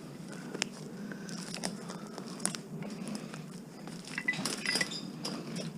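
Scattered light clicks and crinkling, rustling handling noise, busiest about four seconds in.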